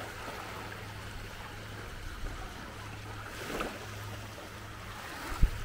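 Small waves lapping gently at a sandy shoreline over a steady low hum. A single sharp thump comes near the end and is the loudest sound.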